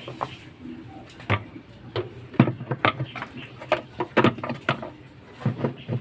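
Plastic knocks and clunks as a top-load washing machine's pulsator is fitted into the bottom of the tub and pressed onto its drive shaft: a run of sharp knocks starting about a second in, coming thickest in the second half.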